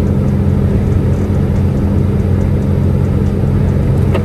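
Semi-truck's engine droning steadily under road noise while driving, with a brief click near the end.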